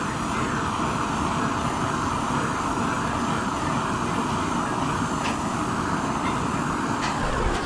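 Gas torch flame burning with a steady, even rush, heating a pressurised two-stroke expansion chamber to push out a dent.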